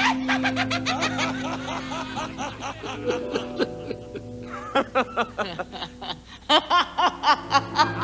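Movie villains' sinister cackling laughter, one laugh after another in quick pulses, over music with long held notes. The laughter grows louder and sharper about five seconds in.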